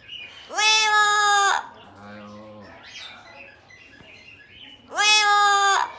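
Double yellow-headed amazon parrot vocalizing: two loud, drawn-out calls of about a second each, one near the start and one near the end, with quieter low-pitched mumbling chatter between them.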